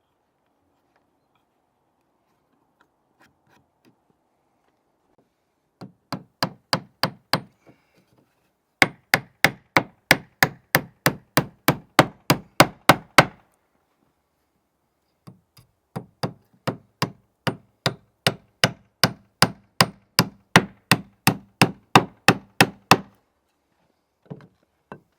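Hand hammer striking while fixing oak shingles to a wall: sharp, evenly spaced blows at about three a second, in three runs separated by short pauses, the longest run lasting about eight seconds.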